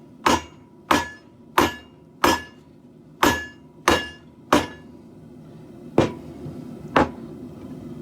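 Hand hammer striking hot steel on an anvil while forging a garden hoe blade: a run of seven blows at about one and a half per second, each with a short metallic ring, then a pause and two more single blows.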